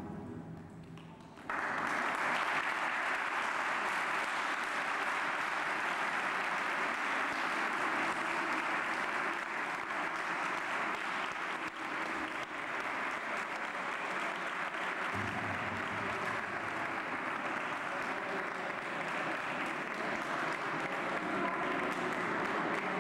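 Audience applauding. The clapping starts suddenly about a second and a half in and goes on steadily, with no let-up.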